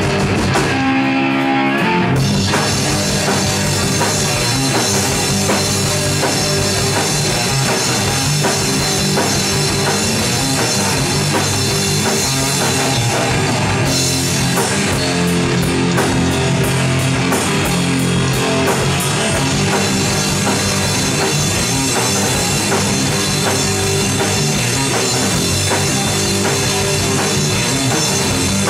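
Heavy rock band playing live: electric guitar, electric bass and drum kit. A short run of single notes opens, and the full band comes in about two seconds in.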